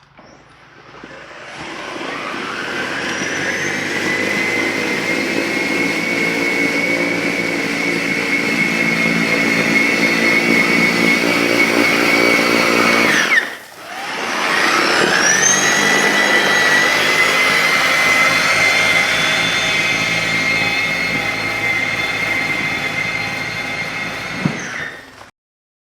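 EGO electric two-stage snow blower's motor spinning up with a rising whine, then running at a steady high whine. About halfway through it winds down and stops briefly, then spins straight back up, and it shuts off near the end.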